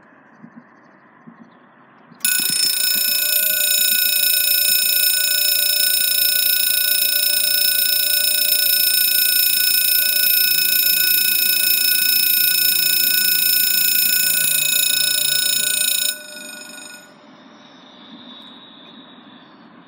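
Railway level-crossing warning ringer sounding one loud, steady, shrill electronic tone, the warning of an approaching train. It starts suddenly about two seconds in and cuts off about fourteen seconds later. A much fainter steady noise follows.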